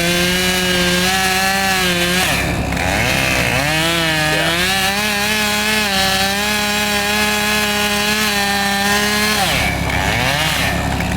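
Two-stroke chainsaw at full throttle cutting a log. It revs up, eases off about two seconds in, revs again and runs steady under the cut, then drops back near the end.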